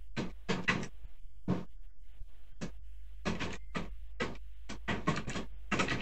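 Computer keyboard being typed on: quick runs of key clicks in irregular bursts, with short pauses between words.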